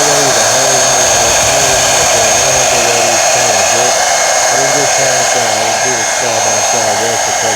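Hair dryer running steadily on its heat setting, a constant blowing rush with a high motor whine, used to warm a 3M sole protector film so its adhesive sticks to a shoe sole.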